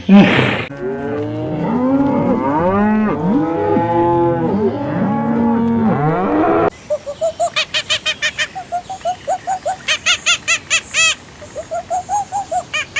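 Several cows mooing at once, their long calls overlapping and rising and falling in pitch. About two-thirds of the way in, this cuts off suddenly. In its place comes a quick run of short, higher-pitched calls repeated several times a second.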